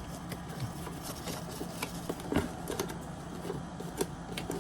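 Scattered small clicks and rattles of a plastic toy and its packaging being handled while the screws holding it in its box are undone, over a faint steady hum.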